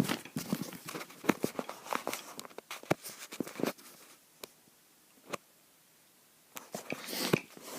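Irregular light knocks and clicks for about four seconds, thinning to a few isolated taps and then little else.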